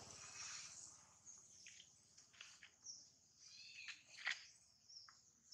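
Faint outdoor ambience: a steady high-pitched drone of insects, with a few short chirping bird calls scattered through it, the loudest a little over four seconds in.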